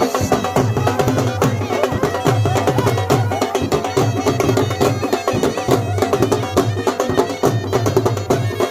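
Dhol drumming a steady folk beat under a band's melody, loud traditional folk music played for the communal grass cutting.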